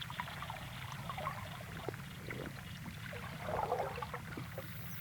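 Faint water sounds: scattered small bubbling ticks and gurgles over a low steady hum, with a brief busier patch of bubbling about three and a half seconds in.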